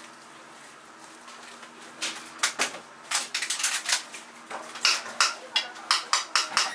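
A metal spoon scraping and clicking against a stainless steel bowl as it stirs minced raw fish, in quick irregular strokes that start about two seconds in.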